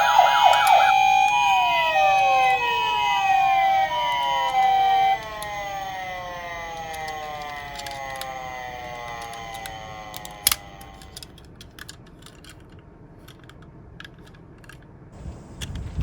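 Siren sounds: a fast warbling wail, then the high-low two-tone 'pee-po' of a Japanese ambulance siren, alternating several times until about five seconds in, with siren tones falling in pitch and fading out over the next several seconds. After that come light clicks and clacks of die-cast minicars rolling on a toy slope, with one sharp knock about ten seconds in.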